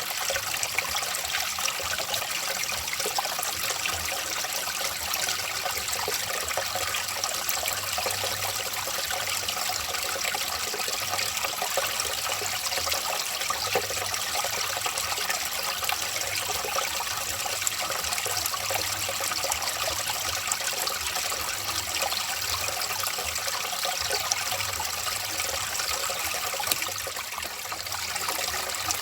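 Running water trickling and splashing steadily, as in a small forest stream.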